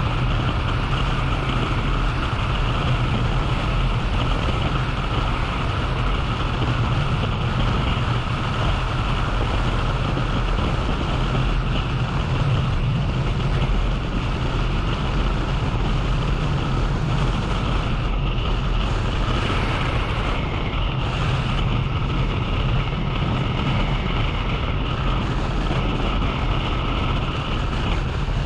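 Steady wind rush on a moving action camera's microphone, over continuous engine and road noise from the vehicle it rides on.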